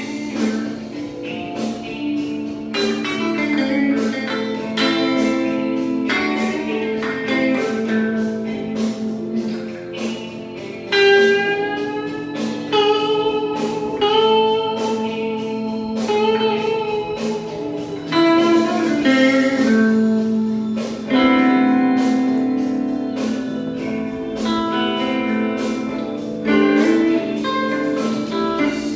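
Guitar improvising a blues solo over a blues accompaniment, with bent and sliding notes.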